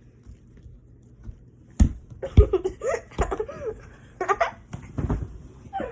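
Giggling, broken by several short thumps close to the microphone.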